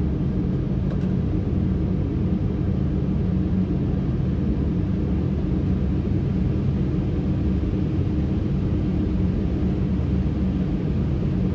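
Steady low rumble of airflow and engines on a Boeing 777 freighter's flight deck during final approach, even throughout with a faint steady hum.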